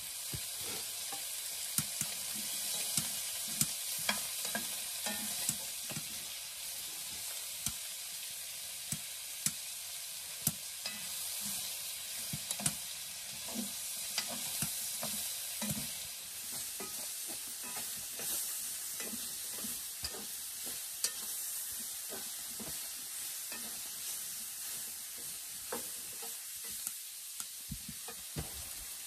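Food sizzling in a frying pan on a wood-burning stove, stirred with a utensil that scrapes and taps against the pan. A steady hiss runs under many small clicks and knocks.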